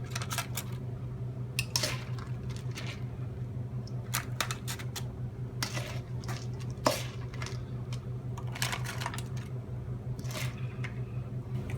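Tablespoon clinking and scraping against the bowl and muffin tray as sticky honey-coated cornflake mixture is spooned into patty cases: irregular clicks and clinks over a steady low hum.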